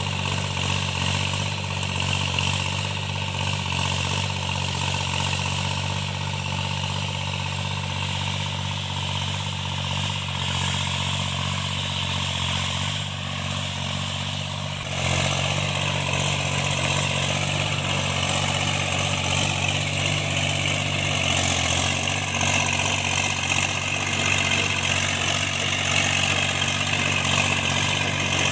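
Tractor engine running steadily under cultivation work, getting louder about halfway through as it takes more load or throttle.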